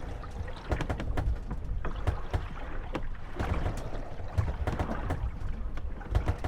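Moored gondolas rocking on choppy water, knocking and creaking against each other and their moorings in irregular clicks and thuds, with water slapping the hulls over a low rumble.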